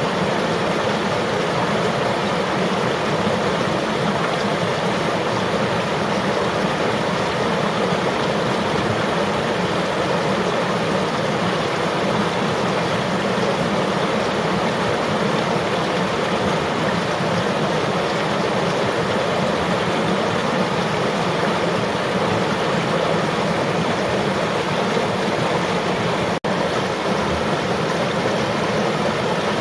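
River water flowing steadily, an even rushing sound with one momentary dropout near the end.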